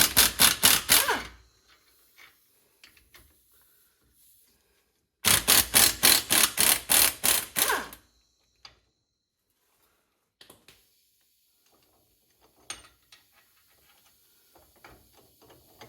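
A power wrench loosening the differential bearing cap bolts on a Chrysler 8.25 axle, in two loud bursts of rapid clattering, about four seconds apart. A few faint metal clicks and clinks follow as the loosened parts are handled.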